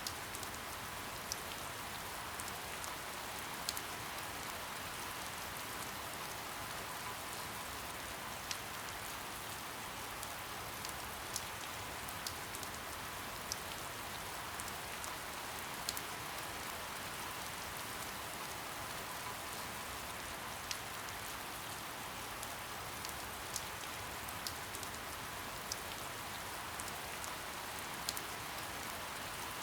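Steady soft rain: an even hiss with scattered individual drops ticking sharply on a surface.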